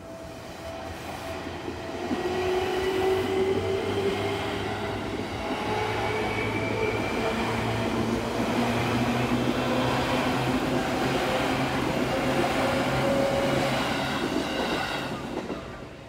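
Yellow Seibu Shinjuku Line commuter train rolling through the level crossing: the rumble of wheels on rail builds about two seconds in and stays loud as the cars pass, with gliding motor and wheel tones over it, then dies away near the end. The crossing's warning bell keeps ringing behind it.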